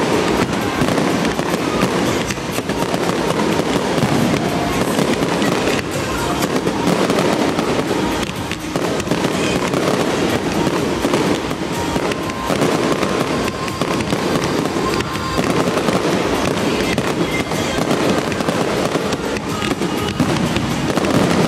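A fireworks display with shells bursting and crackling in quick, continuous succession, over music playing on loudspeakers.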